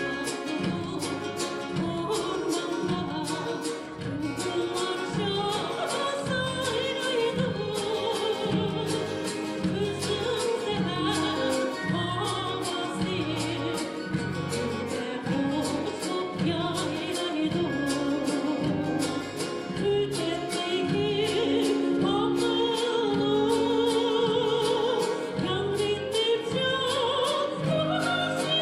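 Uyghur folk song: a voice singing with vibrato over instrumental accompaniment with a steady low beat.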